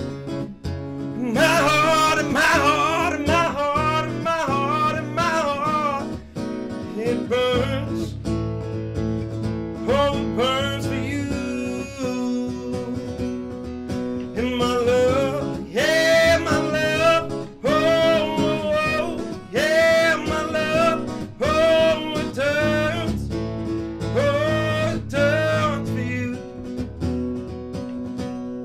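A man singing a slow, wavering melody over a played acoustic guitar; the voice comes in about a second and a half in and sings in phrases with short guitar-only gaps between them.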